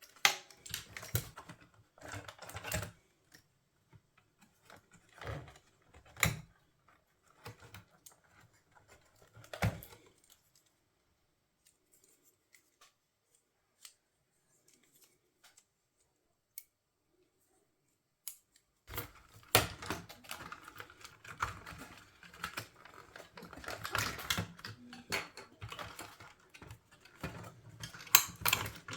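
Irregular clicks and rattles of small plastic parts and tools being handled while a boombox is worked on, stopping for a quiet stretch in the middle and coming back busier near the end.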